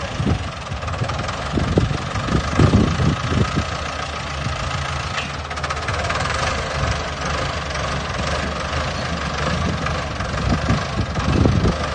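Heavy earthmoving machine's diesel engine running steadily, with a few irregular low thumps about three seconds in and again near the end.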